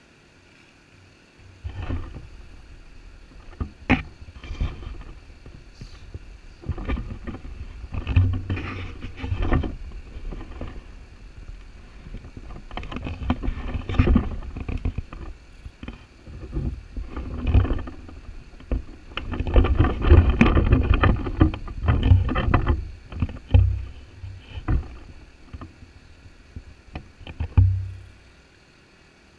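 Gusty low rumbling noise buffeting the camera microphone, swelling and falling in irregular waves, with scattered sharp taps and knocks.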